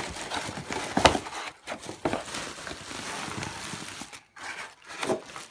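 Rustling, crinkling handling noise from vacuum packaging being pulled away, with a sharp knock about a second in and scattered small clicks.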